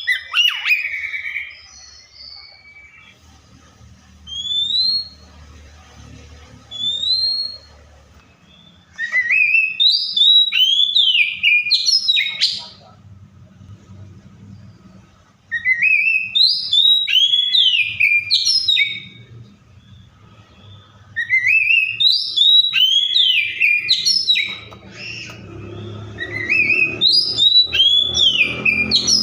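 Oriental magpie-robin singing: rapid bouts of varied whistles and chirps, each lasting three to four seconds, with pauses between them. Two single rising whistles sound in the quieter stretch before the first bout.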